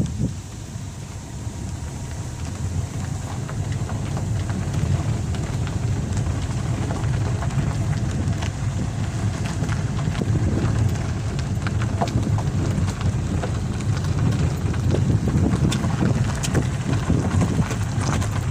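Wind buffeting the microphone in the open, a steady low rumble that swells in gusts and grows louder over the first few seconds.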